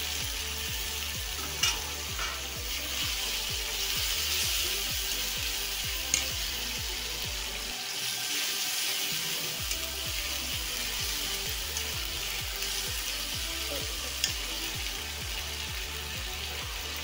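Chopped tomatoes sizzling steadily as they fry in hot fat in a metal kadai, stirred with a metal spatula, with a few sharp clicks of the spatula against the pan.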